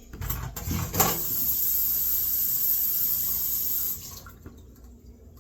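Kitchen tap running into a sink, with a knock or two about a second in. The water is shut off about four seconds in.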